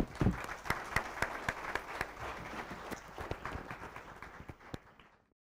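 Audience applauding with dense, irregular clapping that fades near the end and then cuts off suddenly.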